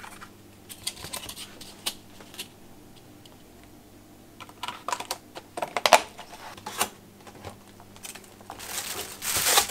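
Clear plastic food container being handled, its lid and sides giving a series of sharp clicks and snaps, then a thin plastic bag rustling as the container goes into it near the end.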